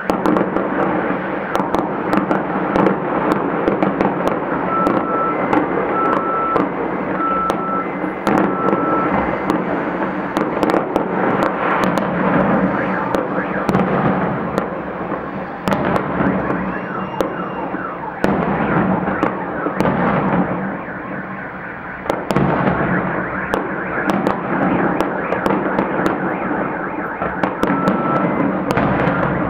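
A large fireworks display bursting continuously, with many sharp bangs and crackles over a constant rumble. A high electronic beep repeats in short pulses from about five to nine seconds in, and once more near the end.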